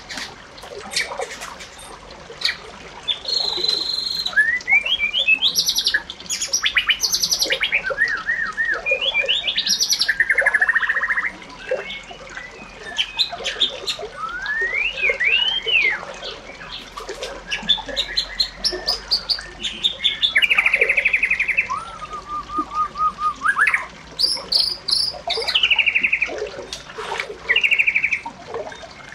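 Bird song: a continuous run of varied phrases, whistled notes, rising and falling glides and buzzy trills, one after another with short gaps.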